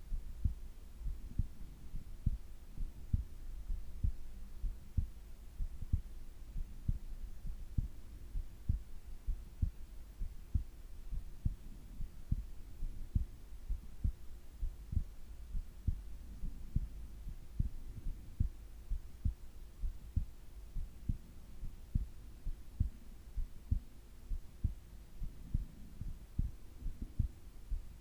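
A sleeping person's heartbeat, heard close to the chest as regular low thumps, with slow breathing swelling faintly beneath it. A faint steady hum runs under both.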